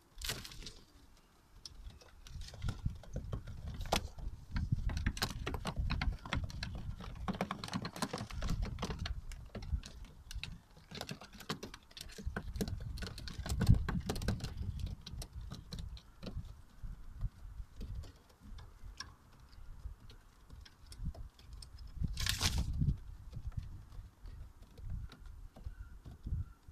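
Many small irregular clicks and taps over a low rumble, from pigeons moving about on the gritty floor of a loft, with one louder short rush about 22 seconds in.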